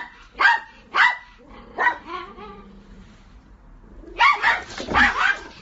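Dog barking: sharp barks about every half second to a second at first, a quieter drawn-out whine around the middle, then a quick flurry of barks near the end.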